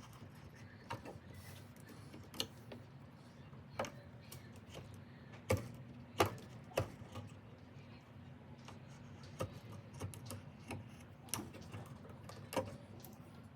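Irregular sharp clicks and taps of a metal ratchet and hand tools being handled, over a low steady hum. The loudest cluster of clicks comes a little before the middle.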